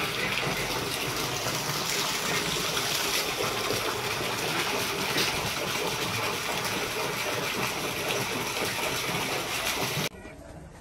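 Water jet pouring into a shallow concrete pool: a steady gushing splash that stops abruptly near the end.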